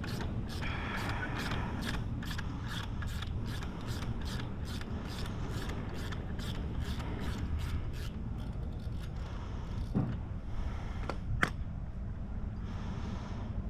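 Hand socket ratchet clicking steadily at about three clicks a second as it is worked on a bolt, dying away about eight seconds in; a couple of sharp metal clinks follow near the end.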